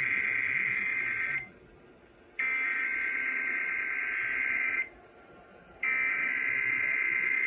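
Emergency Alert System SAME header data bursts: a harsh, buzzing digital warble played as repeated bursts, each about two and a half seconds long with about a second's gap. The first burst ends just over a second in, a second burst plays in full, and a third starts near the end, marking the start of a Required Weekly Test.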